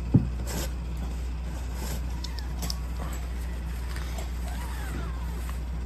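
Faint, high mews from a newborn kitten being rubbed and handled, over a steady low hum, with a single thump just after the start.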